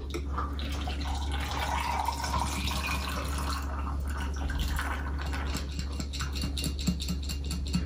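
Margarita poured from a metal cocktail shaker through its strainer top into a glass packed with ice: a steady stream of liquid splashing over the ice, breaking up about halfway into trickles, drips and small clinks as the shaker empties.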